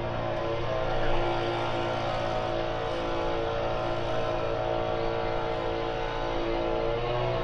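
Small petrol engine of garden machinery running steadily at a fairly constant pitch, wavering only slightly.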